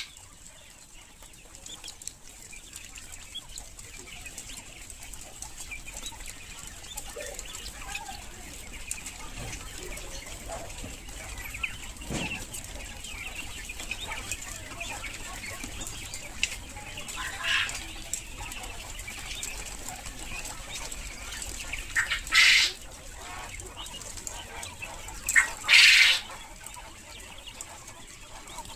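Quails moving about with small rustles and clicks, and three short, loud bursts of wing flapping in the second half.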